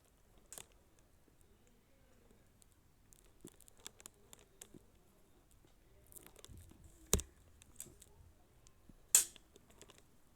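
Close-up handling noises of unpacking packaging: scattered light clicks and rustles, a sharp knock about seven seconds in, and a louder sharp click near the end.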